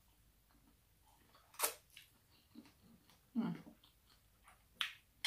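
A person eating: a few separate sharp, crisp crunches from biting and chewing food, with a short hummed voice sound about halfway through.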